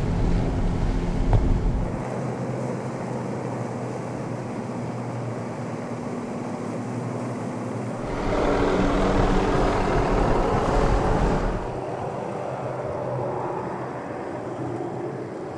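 Motorboat engine running steadily over wind and rushing water. The sound shifts abruptly about 2, 8 and 12 seconds in and is loudest between 8 and 12 seconds.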